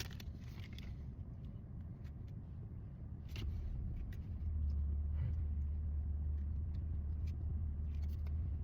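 A steady low rumble that grows louder about halfway through, with a few soft rustles and clicks of trading cards being handled.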